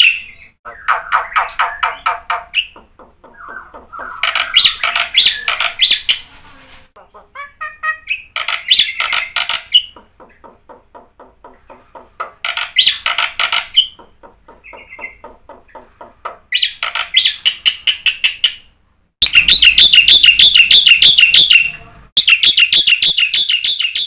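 Black-winged myna (jalak putih) singing a loud, busy song: phrases of rapid repeated notes, each one to three seconds long, broken by short pauses.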